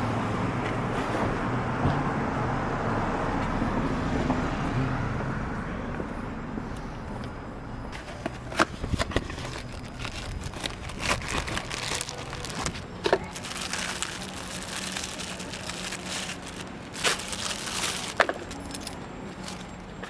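A steady rushing noise with a low hum that fades over the first eight seconds or so, followed by a string of scattered sharp clicks and knocks, like hard parts being handled.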